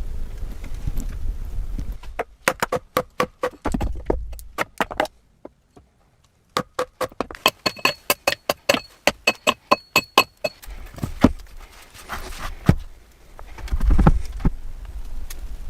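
Quick metallic taps, about four a second, each with a short ringing tone, in two runs with a brief pause between. A low rumbling noise sounds before them.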